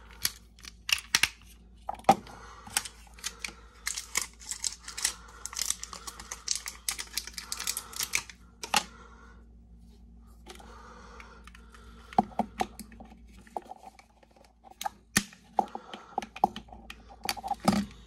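AAA batteries being pushed into the spring terminals of an electric pepper grinder's plastic battery holder: irregular clicks and rattles of batteries against plastic, with a quieter stretch a little past halfway.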